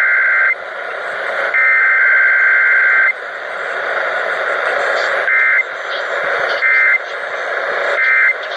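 Emergency Alert System test data bursts, the raspy digital header tones, received on a radio over steady static. One burst ends about half a second in and a second runs from about 1.5 to 3 seconds; then three short bursts follow about every 1.4 seconds.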